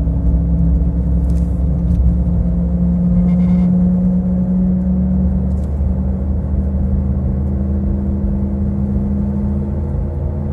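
Humming drone of a failing wheel hub bearing on a 2014 Chevrolet Cobalt at road speed, a steady low tone over road rumble that slowly rises in pitch as the car speeds up and grows a little quieter near the end. The owner blames the damage on the brake disc being knocked out with a hammer.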